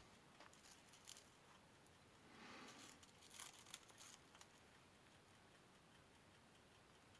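Near silence, with faint rustling and a few light clicks of small materials being handled and positioned. These are likely the foil-backed foam and the cardboard being set under the punch. The handling sounds fall mostly in the first four seconds.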